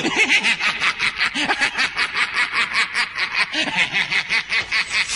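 A man's voice laughing gleefully over found treasure, a long unbroken run of quick breathy laughs, about six a second, that breaks off near the end.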